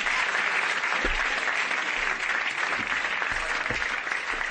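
Audience applauding steadily, with a few soft low thuds beneath it.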